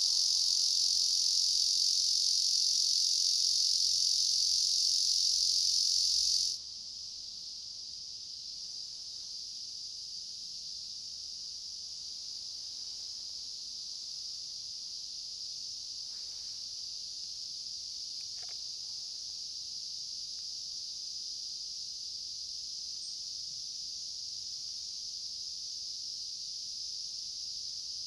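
Steady, high-pitched insect drone in summer woodland. It drops abruptly to a lower level about six and a half seconds in, then carries on evenly.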